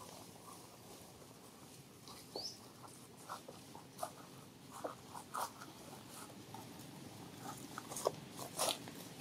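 Scattered short clicks and snaps from long-tailed macaques handling an infant on a tree branch, louder and more frequent near the end. There is one brief rising squeak about two and a half seconds in.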